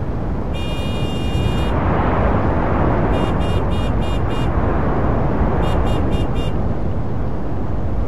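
Busy city avenue traffic: a steady rumble of passing vehicles, with a long high horn blast near the start and two runs of short, quick beeps in the middle, five and then four.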